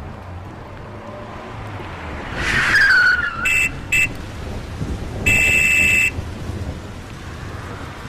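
Intro sound effects over a steady low rumble. About two and a half seconds in, a loud screech falls in pitch. Then come two short beeps and, a second later, one longer beep.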